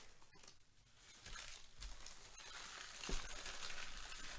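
Crinkling and tearing of packaging as a trading-card hobby box is handled and opened, with one sharp snap about three seconds in.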